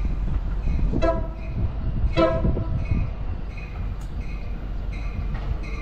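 Approaching Amtrak Pacific Surfliner train sounding two short horn blasts about a second apart, over a low rumble. A bell starts ringing repeatedly about two and a half seconds in.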